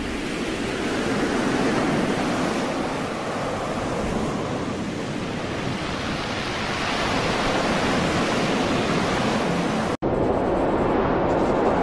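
Storm wind and heavy seas: a steady rushing noise, broken by a sudden brief dropout near the end.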